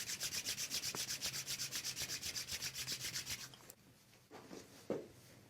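Brisk rhythmic rubbing, about nine even strokes a second, stopping after about three and a half seconds; a single short knock near the end.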